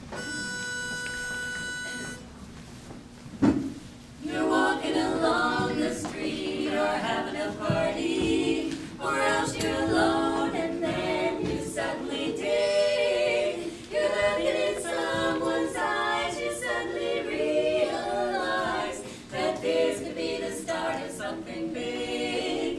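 A pitch pipe sounds one steady starting note for about two seconds. After a brief knock, a women's barbershop quartet begins singing a cappella in close four-part harmony.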